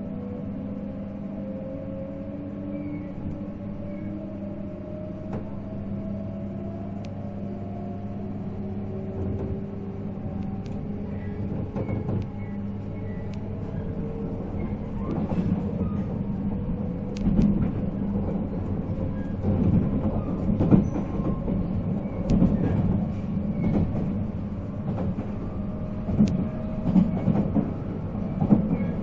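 485-series electric train's MT54 traction motors whining, the pitch rising steadily as the train picks up speed, heard from inside the car. Over the second half the wheel and rail rumble grows louder, with frequent clicks and knocks from the track.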